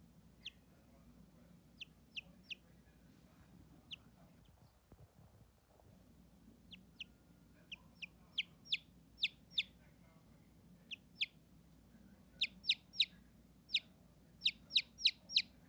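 Newly hatched chicks peeping: short, high, downward-sliding cheeps. They are scattered at first, then come more often, in quick runs of three to five in the last few seconds.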